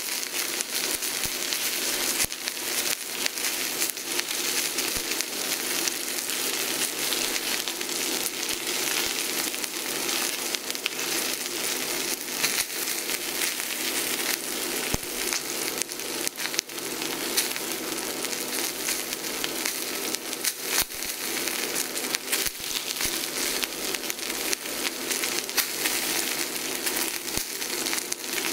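Dry-aged ribeye steak searing in hot fat in a skillet: a steady sizzle with constant small crackles and pops.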